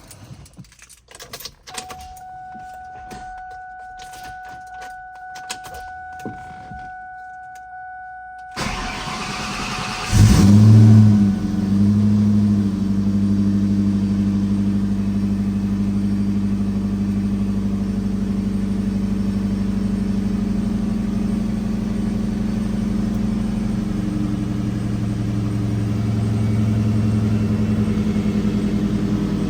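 A 2003 SVT Cobra's supercharged 4.6-litre V8 is started on a fresh set of NGK TR6 spark plugs. A few clicks and a steady electronic tone come first; about nine seconds in the engine cranks, catches with a brief rev flare, and then settles into a steady idle.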